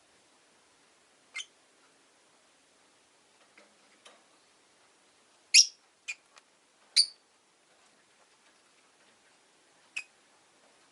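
Rosy-faced lovebirds giving short, sharp, high-pitched chirps: a few scattered single calls, with a quick cluster of four or five of the loudest in the middle.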